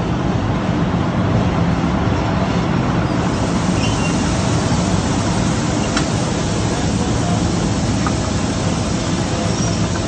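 Shelled corn rushing out of a hopper-bottom grain trailer's opened gate and pouring through the grate into a receiving pit, a steady hiss that builds about three seconds in. Underneath it runs a steady machinery hum.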